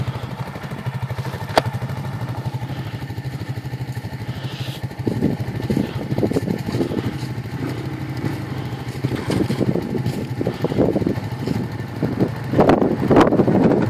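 Blade 550 ATV engine running, a steady low hum that grows louder and rougher from about five seconds in. It is loudest near the end as the quad comes down toward the listener.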